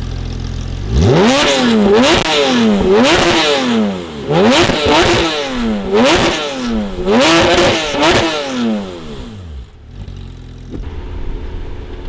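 Tuned Porsche GT3 RS's naturally aspirated 4.0-litre flat-six with an aftermarket exhaust, idling and then revved hard five times in quick succession. Each rev climbs sharply and drops back, and the engine settles to idle near the end.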